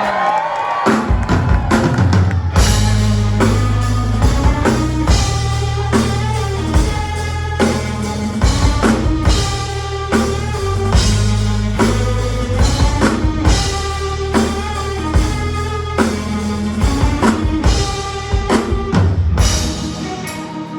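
Live rock band playing the opening of a song: a steady drum kit beat with bass drum and snare over low bass notes and sustained instrument notes.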